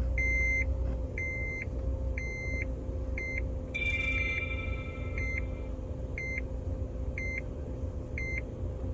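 Honda Odyssey's dashboard warning chime beeping about once a second, with a longer, several-note chime about four seconds in. A low steady rumble of the car's idling engine runs underneath.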